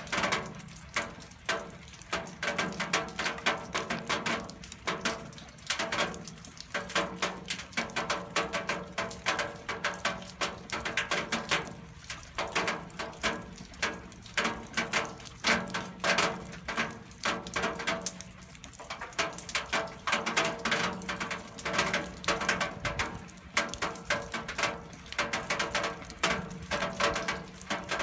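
Rainwater falling on metal: a dense, irregular pattering of drops striking the metal, with a steady faint tone underneath.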